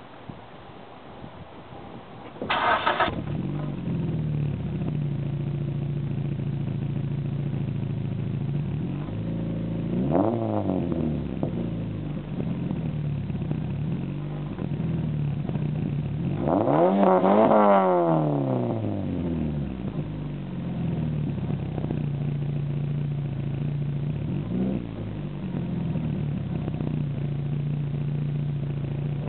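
Dodge Neon four-cylinder engine through an SRT-4 stainless cat-back dual exhaust. It starts about two and a half seconds in and settles into a steady idle. It is revved briefly about ten seconds in, harder and longer around seventeen seconds, and blipped lightly twice more later on.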